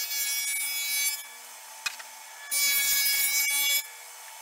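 Table saw with a stacked dado blade cutting shallow dados across a plywood panel in two passes, one on each side. The first cut ends about a second in and the second runs for a little over a second from about two and a half seconds in, with the saw's steady running whine between them.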